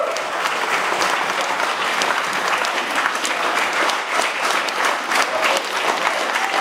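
Audience applauding steadily, dense hand-clapping.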